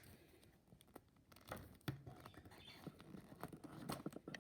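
Faint handling noises from a plastic action figure being turned and moved in the hands: scattered light clicks and taps.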